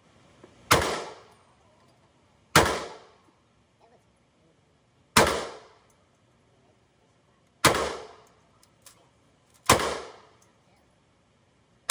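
Handgun fired five times in slow succession, shots about two to two and a half seconds apart, each a sharp crack followed by a short echo off the indoor range's walls.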